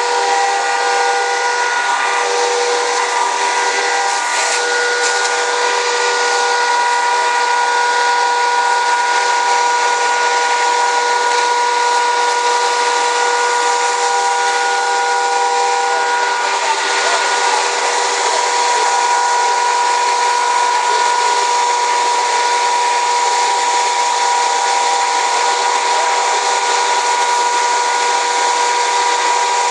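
Fire hose water streams, with a steady loud rushing hiss and a constant high whine under it.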